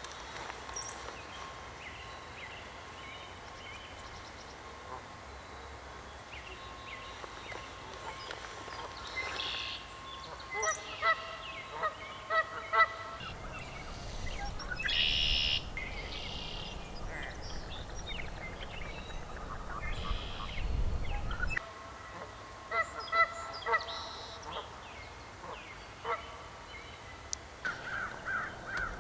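Waterfowl honking in short repeated bouts, with small birds chirping between them. A low rumble, like wind on the microphone, runs for several seconds midway.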